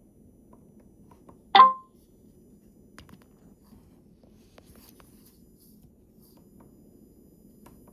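iRobot Braava jet m6 robot mop giving a single short electronic beep about one and a half seconds in, followed by a faint click about three seconds in.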